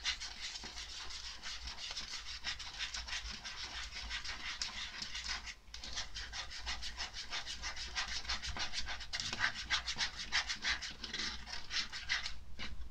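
The small plastic spoon of a Popin' Cookin' cake kit stirring cake-mix powder and water in the kit's plastic tray: quick, rhythmic scraping strokes, with a short pause about five and a half seconds in.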